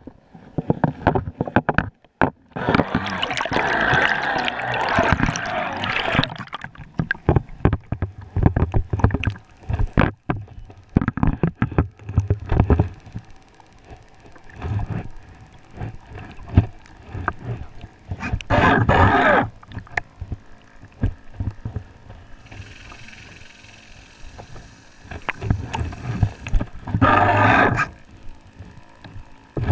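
Water sloshing and splashing around a GoPro Hero 3+ camera in its waterproof housing, with many small knocks and bumps. Louder rushes of splashing come about three seconds in, again around nineteen seconds, and near the end.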